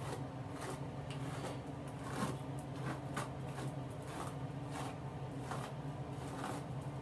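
A hairbrush pulled in quick repeated strokes through a wig's long hair, about two brushing swishes a second, over a steady low hum.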